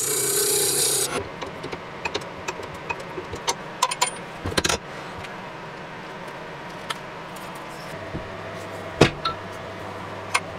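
A lathe tool cuts into spinning wood with a hissing scrape that stops about a second in. Then come scattered clicks and knocks as the turned pepper-mill body is handled and fitted into a metal lathe chuck, with one sharp knock near the end. A low steady hum comes in late.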